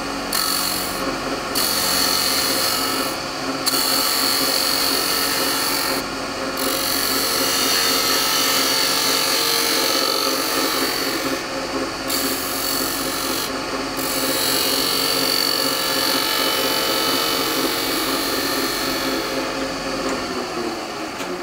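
A beading and parting tool cuts a bead into a spindle spinning on a wood lathe, giving a continuous hissing, scraping cut. The cut breaks off briefly about five times in the first fourteen seconds and lightens near the end, and a steady lathe hum runs underneath.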